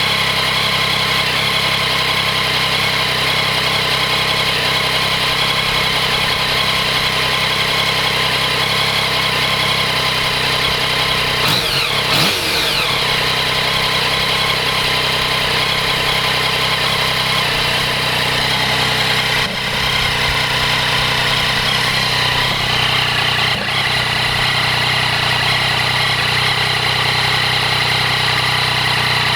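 2014 Yamaha MT-09's inline three-cylinder engine idling steadily while warming up from a cold start, with one brief blip of the throttle about twelve seconds in. The owner is asking whether a rattling, ticking noise can be heard from the engine, even though the countermeasure cam chain tensioner part has already been fitted.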